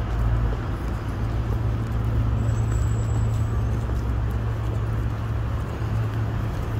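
Steady city street ambience: a continuous low traffic rumble under general outdoor noise, with no clear single event.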